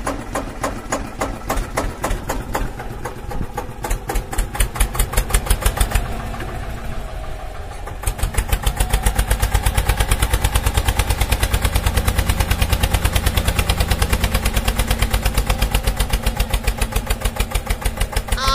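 Diesel tractor engine chugging at a rapid, even beat, louder from about eight seconds in as the tractor labours while stuck in sand.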